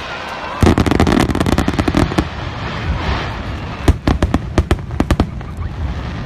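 Aerial fireworks bursting: a dense run of sharp cracks starting just under a second in, then more widely spaced single cracks around four to five seconds in.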